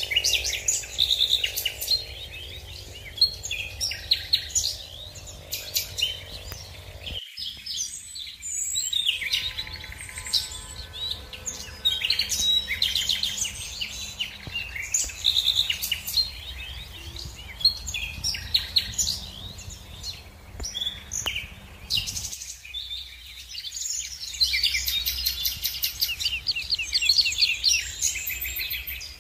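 Songbirds chirping and singing, many short calls overlapping, over a low steady hum. The background changes abruptly about seven seconds in and again about twenty-two seconds in.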